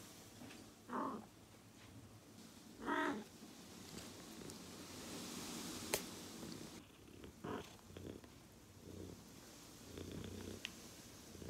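Domestic cat purring close up, with three short louder bursts about a second in, near three seconds and past seven seconds, and a single sharp click near the middle.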